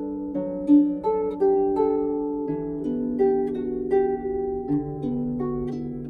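Salvi Mia 34 lever harp with silkgut strings being played: plucked notes ringing on into one another, a melody over lower accompanying notes.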